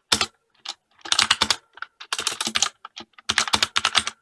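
Corsair K65 mechanical keyboard with Cherry MX Red linear switches, its keys typed on in about four quick flurries of clacks with short pauses between.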